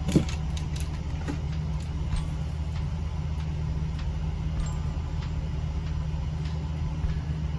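Steady low hum of a room air conditioner running, with a few light clicks in the first second.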